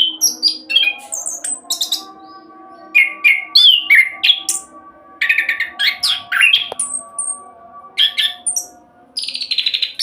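Chestnut-capped thrush (anis kembang) singing its fast 'roll' song: bursts of rapid, varied, high sweeping notes and trills, with short pauses between the phrases.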